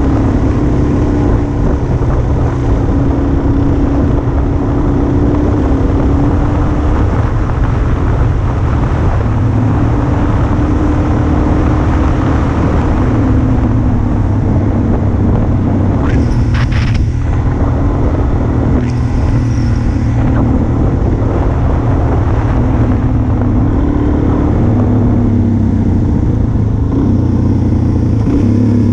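Motorcycle engine running steadily while riding, heard from the bike itself over rushing wind noise; the engine note wavers a little with the throttle. Two brief high hisses come past the middle.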